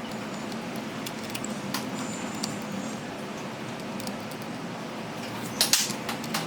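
Light clicks and taps of small metal tools and parts being handled over a steady hiss, with a louder cluster of clicks near the end.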